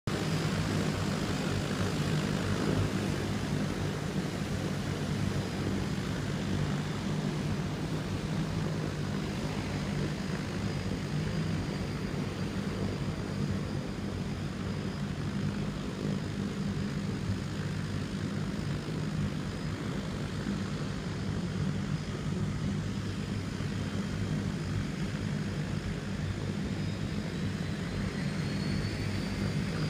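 A seaplane's propeller engine droning steadily, with a faint high whine rising near the end.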